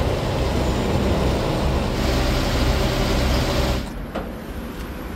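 Motorhome engine running under a loud, steady rush of noise. It cuts off suddenly about four seconds in, followed by a couple of faint clicks.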